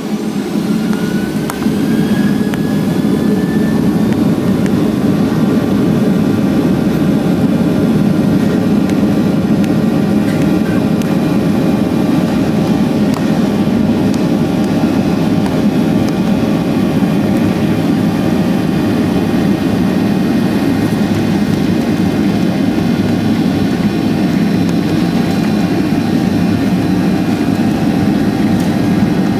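Boeing 737-800's CFM56-7B turbofan engines spooling up to takeoff power, heard inside the cabin: a whine rises in pitch and the noise swells over the first couple of seconds. Then a steady loud rush of engine and air noise with a hum of steady engine tones.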